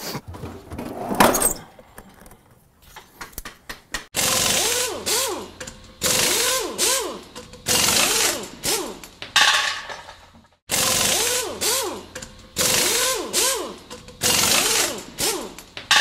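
Harsh tool and metal-working noise while a snap ring is being worked out of a dirt bike wheel hub. It comes in a string of short segments that start and stop abruptly, each with quick warbling pitch sweeps through it.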